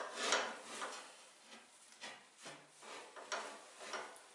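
Manual rail tile cutter being worked on a floor tile: the carriage and scoring wheel scraping along the tile and rails in about half a dozen short, rasping strokes.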